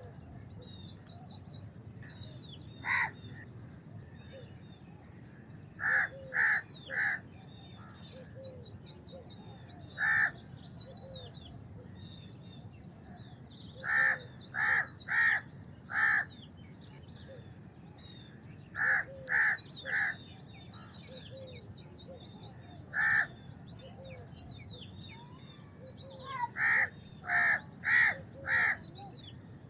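House crows cawing: short, harsh calls, some single and some in quick runs of three to five. Constant fast, high chirping from smaller birds runs underneath.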